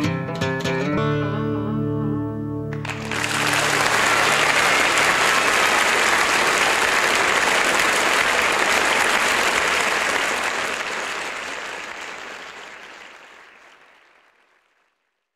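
Electric guitar plays its last plucked notes and a held final chord. About three seconds in, an audience breaks into steady applause, which fades away over the last few seconds.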